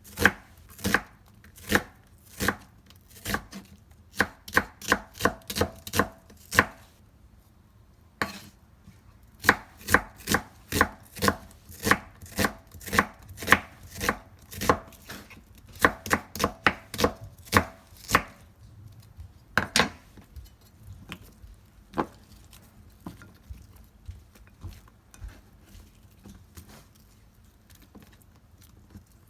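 Kitchen knife chopping food on a cutting board in runs of sharp, even strokes, about two to three a second at their quickest. There is a pause about seven seconds in, and after about eighteen seconds only a few lighter, scattered cuts follow.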